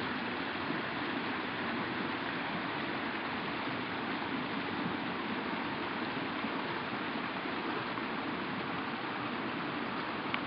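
A small, shallow woodland stream running over rocks and little riffles: a steady, even rush of water.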